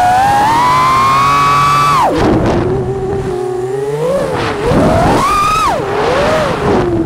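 FPV freestyle quadcopter's brushless motors and propellers whining, the pitch following the throttle. A high, steady whine drops sharply about two seconds in, with a rush of air and prop noise. The pitch then climbs and falls several times in quick punches.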